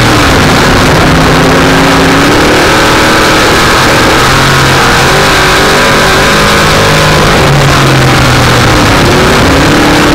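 Dirt-track race car's engine heard from on board, loud and steady at full throttle. The revs drop and climb back up near the start and again about nine seconds in, as it backs off for a turn and accelerates out.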